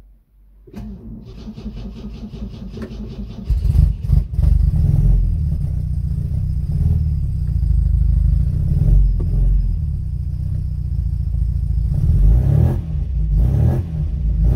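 MGB GT's 1.8-litre B-series four-cylinder engine cranked over by the starter motor for a few seconds, then catching about three and a half seconds in and running loudly on choke, heard from inside the cabin. This is its first start on a newly fitted 123 Tune+ electronic distributor set to 10 degrees static advance.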